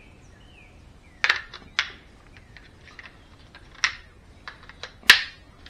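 Sharp plastic clicks as batteries are pressed into the battery compartment of a digital thermostat: about half a dozen separate clicks and snaps, the loudest about five seconds in.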